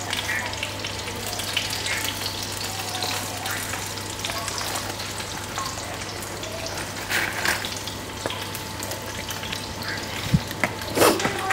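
Food frying in hot oil in a pan, a steady sizzle with scattered small crackles and pops, over a steady low hum. A few louder clattering knocks come near the end.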